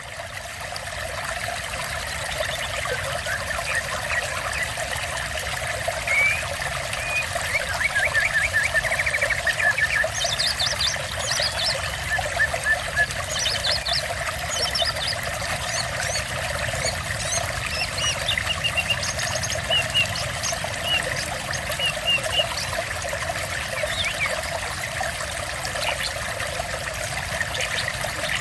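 Water trickling steadily, with small birds chirping and trilling over it from several seconds in.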